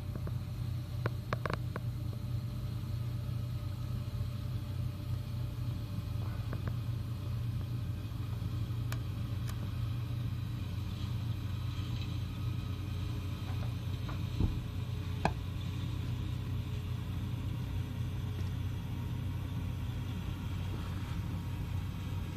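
John Deere 952 combine harvester running steadily as it cuts grain, a low, even drone. A few short knocks break through, a cluster about a second in and two more past the middle.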